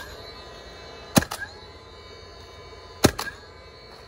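DeWalt 20V cordless coil roofing nailer (DCN45RNB) firing two nails into asphalt shingles about two seconds apart. Each shot is a sharp crack followed by a quick second knock, over the faint steady whine of its flywheel.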